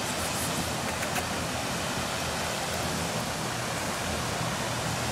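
Steady outdoor background noise, an even hiss with no distinct events, and a few faint light ticks in the first second or so.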